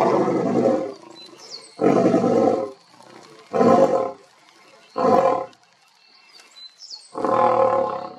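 Male lion roaring: a long roar ends about a second in, then four shorter roars follow a second or two apart.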